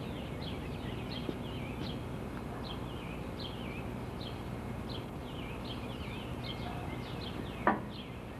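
Songbirds singing, a steady run of short high falling chirps about two a second, over a low steady background rumble. A single sharp knock near the end.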